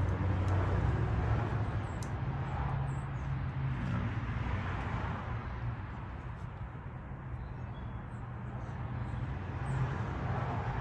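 Steady low engine hum with a traffic-like rumble, and a few faint light clicks.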